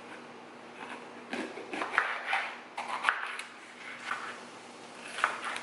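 Kitchen handling sounds: a scatter of short knocks and clinks, about half a dozen over a few seconds, as dishes, utensils and cupboards are handled while starting to cook.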